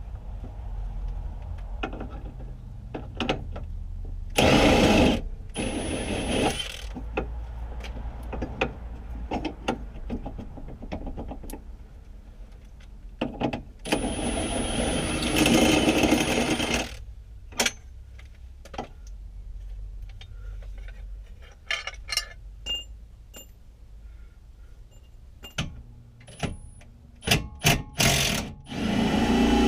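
Tools clinking and knocking on metal during rear suspension work on a car. Several loud bursts of a power tool come in between: two short ones about five seconds in and a longer one of about three seconds midway.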